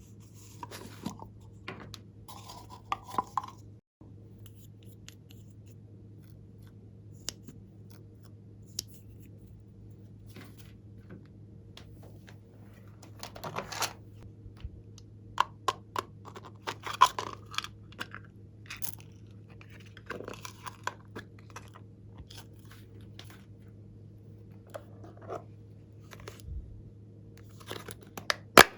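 Glossy slime being handled and mixed by hand, giving irregular sticky clicks, crackles and small pops, busiest in the middle of the stretch. A steady low hum runs underneath.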